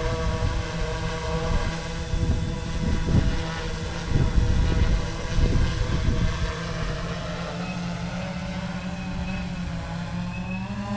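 Sky-Hero Spyder 6 hexacopter hovering: six T-Motor MN4120 brushless motors spinning 16-inch props give a steady droning hum, its pitch edging up slightly near the end. Gusty low rumble buffets the sound between about two and six seconds in.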